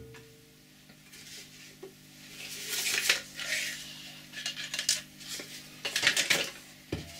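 Plastic bottle of Cillit Bang bathroom cleaner being picked up and its cap twisted open: several short bursts of plastic clicking and rattling, about two to three seconds in, near five seconds and around six seconds, over a faint steady hum.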